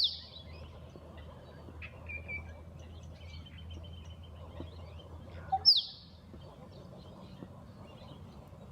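Musk duck display call, given twice about five and a half seconds apart. Each is a short low plonk followed by a loud, sharp whistle that falls steeply in pitch. Faint chirps of small birds lie in the background.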